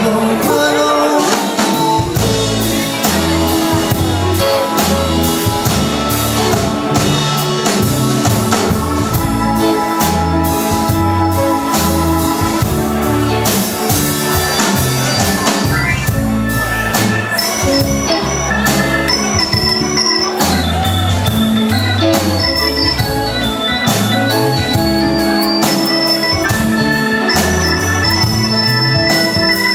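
Live rock band playing an instrumental passage led by organ, over a stepping bass line and steady drums.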